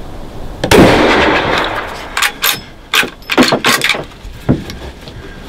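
A single loud shot from a Ruger .450 Bushmaster rifle, with a long ringing tail. Several sharp clacks follow over the next few seconds.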